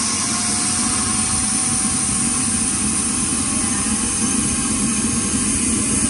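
Vacuum cleaner running steadily, sucking the air out of a vacuum storage bag packed with stuffed toys, with a faint whine rising slowly in pitch.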